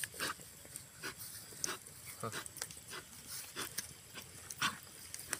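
Knife blade scraping along a fire-singed snake's body to strip off its hard scales, in short, irregular strokes.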